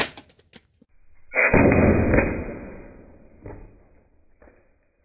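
A single sharp crack from a compressed-air golf ball gun as its shot bursts an orange. About a second and a half later comes a louder, deeper and muffled boom that fades away over about a second and a half, as in a slow-motion replay of the shot.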